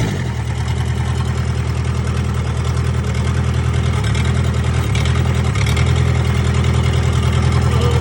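Four-cylinder Kubota diesel engine of a 1998 Gehl skid steer running steadily with an even pulsing beat, after a brief shift in its note right at the start. It is running again after a fuel injection pump rebuild and bleeding of the fuel lines.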